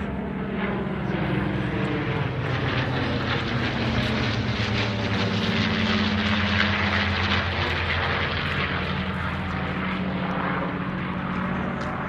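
Piston engines and propellers of a formation of World War II fighter planes droning overhead, growing louder to a peak about halfway through as they pass over, then easing off.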